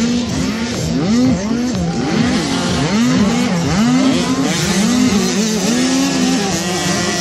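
Several 65cc two-stroke motocross bikes racing, their engines revving up and down over and over, with the pitches overlapping.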